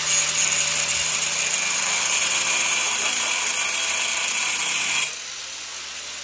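A power tool running steadily, dropping in level about five seconds in.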